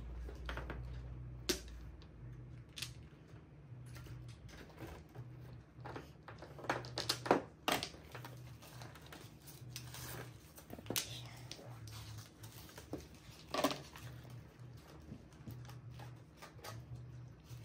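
Mahjong tiles clicking and knocking on the table as they are drawn and discarded: sharp, scattered clacks at irregular intervals over a low hum.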